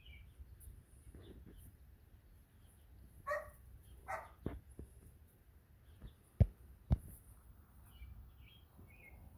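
Puppies barking twice, short and high, about three and four seconds in, with small birds chirping throughout and a few sharp knocks in the middle.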